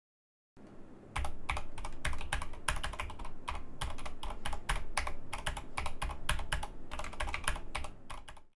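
Fast typing on a Corsair K70 MK.2 SE mechanical keyboard with Cherry MX Speed linear switches: a rapid, uneven run of keystrokes that starts about half a second in and stops just before the end.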